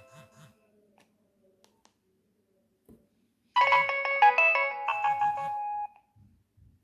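Nokia 3120 mobile phone playing its built-in ringtones through its loudspeaker. The end of one tune dies away, and after a pause of about three seconds a bright tune with several notes at once plays for a couple of seconds and cuts off suddenly.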